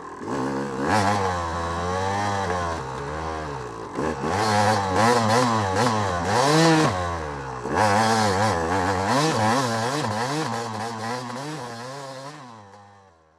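Motorcycle engine under way, its pitch rising and falling again and again as the throttle is worked, fading out near the end.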